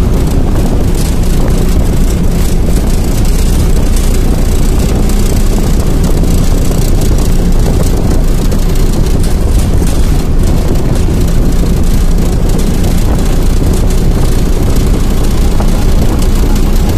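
Steady running noise of a moving vehicle heard from on board: a low engine drone under a loud, even rush of wind and rolling noise, without a break.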